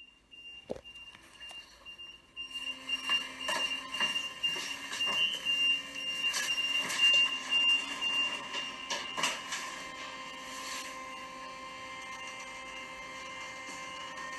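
Elevator with a steady high-pitched tone and a string of clicks and knocks from buttons and doors. After about nine seconds the tone stops with a loud clunk, and a steady motor hum follows as the car travels up.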